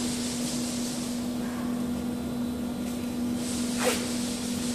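PVC banner welding machine running with a steady hum and hiss. About four seconds in, a brief rustle of the PVC strip being grabbed by hand.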